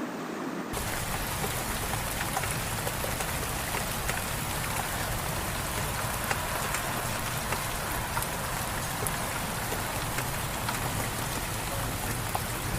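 Steady rain falling, an even hiss dotted with many small drop ticks, cutting in abruptly just under a second in.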